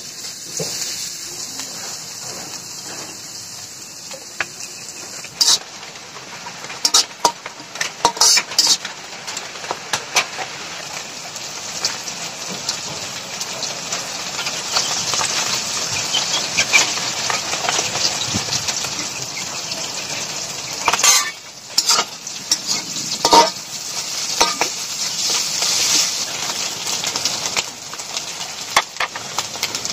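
Sliced onions and whole spices sizzling in hot oil in an aluminium kadai, a steady frying hiss that grows louder after about five seconds. Sharp clinks and scrapes against the metal pan come now and then, in clusters.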